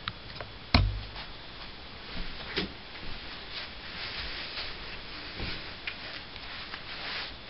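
Scattered knocks, taps and soft rustling over a steady hiss, with one loud thump about a second in: feet in clogs shifting on a carpet and clothing rubbing.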